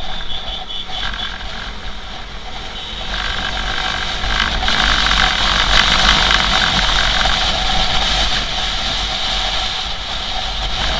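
Motorcycle riding on a highway: engine and road noise with wind rumbling on the microphone, growing louder about three seconds in.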